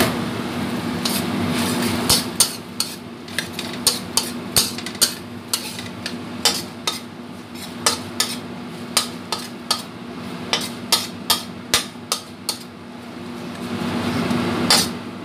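A metal spatula clanking and scraping against a stainless steel wok while stir-frying salted squid in chili paste: sharp, irregular clanks about twice a second over a steady low hum. The clanking stops about three-quarters of the way through.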